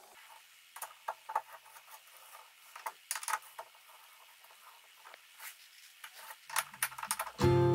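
Small metallic clicks and taps from an Allen key turning a steel hex-drive threaded insert into a hole in a wooden board, coming in a few short clusters. Music comes in loudly near the end.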